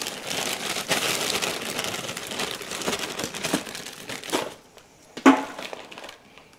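Plastic bag of frozen French fries crinkling as it is handled, a dense crackle lasting about four seconds, followed by two knocks.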